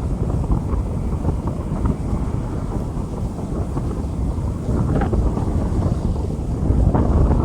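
Steady rain falling on a street, heard as a dense, even wash of noise with a heavy low rumble underneath.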